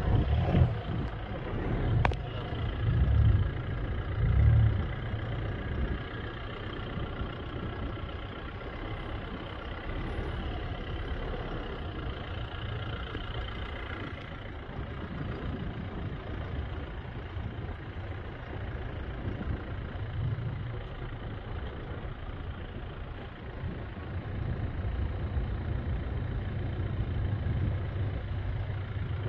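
Four-wheel-drive vehicle driving on soft desert sand: steady engine and tyre rumble, with a few heavy low thumps in the first five seconds as it rides over the bumpy track.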